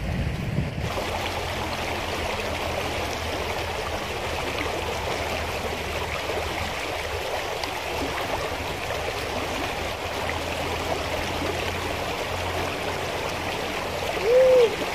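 Shallow rocky river rushing over small rapids: a steady wash of flowing water. A short, loud tone that rises and falls comes near the end.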